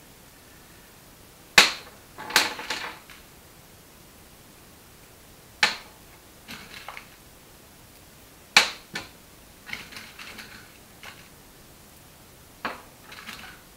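Small steel bolts, washers and nuts clinking on a metal bench top as they are picked up and set down: about five sharp metallic clinks, each followed by a few lighter rattles.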